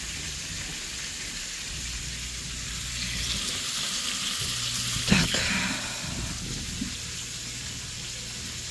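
Fish frying in olive oil in a pan, a steady sizzle that grows louder about three seconds in as sliced onion and bell pepper are dropped in. There is a single sharp knock about five seconds in.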